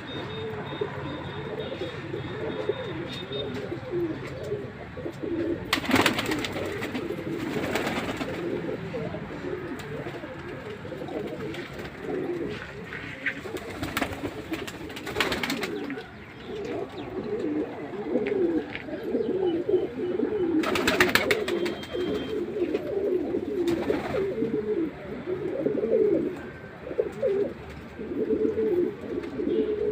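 Many pigeons cooing together in a continuous low warble, with a few brief noisy bursts.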